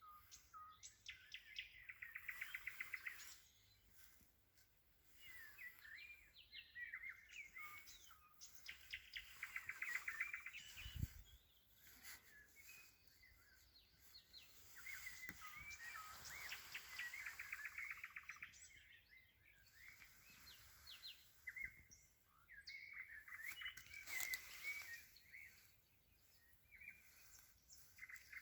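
Songbirds singing faintly: repeated trilled phrases of rapid notes, with scattered chirps in between.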